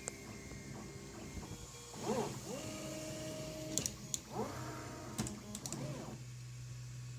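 Anet A8 3D printer's stepper motors whining as the print head moves, the pitch rising and falling with each move, with a few sharp clicks. About six seconds in the movement stops, leaving a steady low hum.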